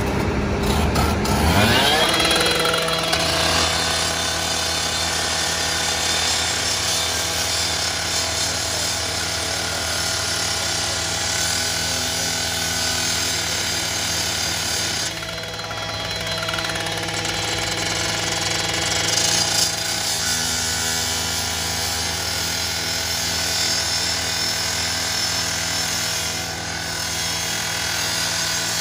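Gas-powered rotary cut-off saw revving up about two seconds in, then held at full speed while its blade cuts into the steel side of a garbage truck body, a steady engine whine over a grinding rasp. It eases off briefly twice, near the middle and toward the end.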